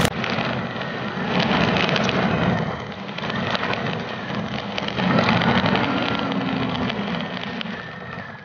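Four-wheel-drive vehicle driving over a rough dirt track: engine running under a dense rattling and crunching of tyres over gravel and ruts. The level rises about a second in, dips near three seconds and rises again around five seconds.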